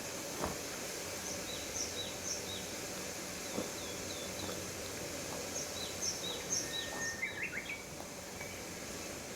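Small birds chirping, short high calls repeated every second or so, over a steady outdoor background hiss, with a couple of faint clicks.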